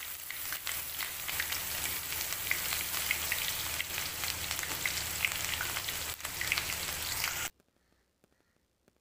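Onion-garlic paste frying in hot oil with cumin seeds and green chillies in a metal kadhai, a steady sizzle with fine crackles. It cuts off suddenly about seven and a half seconds in.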